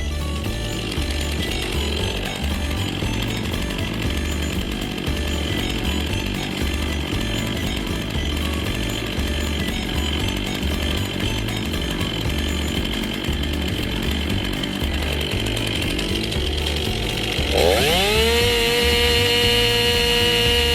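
Chainsaw engine running, rough and low in pitch for most of the time, then revving up about three-quarters of the way through to a steady high whine at full throttle.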